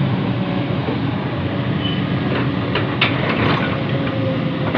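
Heavy diesel engine of an excavator digging and loading soil, running steadily. A cluster of metallic clanks and knocks comes about two and a half to three and a half seconds in.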